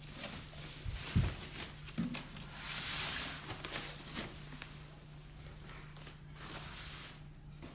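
Packaging being handled during an unboxing: a few light knocks, the clearest about one and two seconds in, and a soft rustle around three seconds in.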